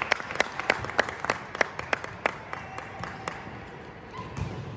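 Hand clapping, about four sharp claps a second, that thins out and stops after about three seconds. A low thump comes near the end.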